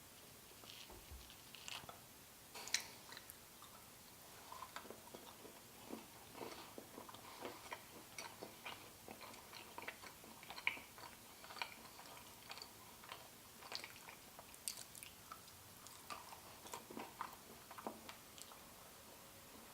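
Quiet, irregular chewing and biting: soft mouth clicks and smacks of people eating coconut-butter pumpkin fat bombs.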